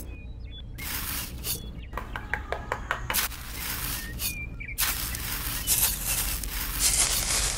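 Small hand trowel scraping and smoothing wet mortar, in repeated strokes with a long final smoothing stroke, plus a few light clicks of the blade about two to three seconds in.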